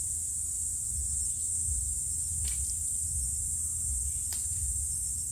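Steady high hiss and low rumble of background noise, with two faint metallic clicks, about two and a half and four seconds in, as the connecting-rod bearing cap and brass are handled.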